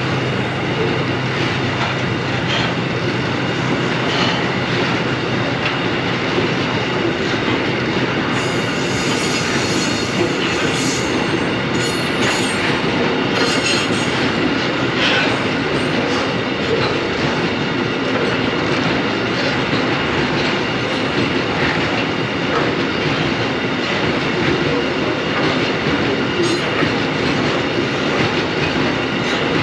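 Narrow-gauge freight train's tank wagons rolling past at close range: a steady rumble of steel wheels on rail with clicks over the rail joints. A spell of high-pitched wheel squeal comes about a third of the way in, with a few brief squeaks later.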